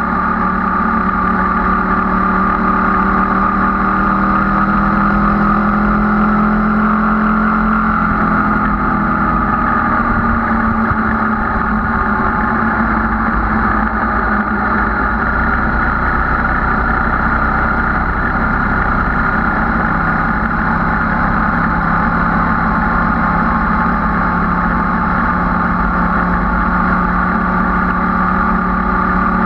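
Motorcycle engine running steadily under way, with wind rush. The engine note climbs for a few seconds, then drops back about eight seconds in and holds steady.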